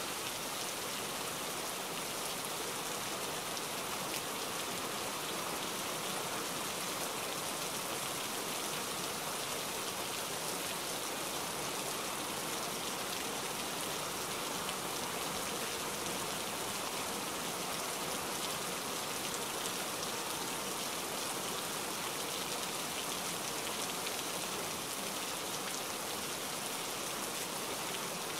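Steady, even hiss like heavy rain, unchanging through the cuts between clips: a continuous rain-noise track laid over the footage rather than the clips' own sound.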